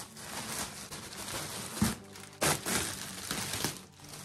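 Clear plastic packaging bag rustling and crinkling in irregular bursts as a coat is pulled out of it, loudest about two seconds in.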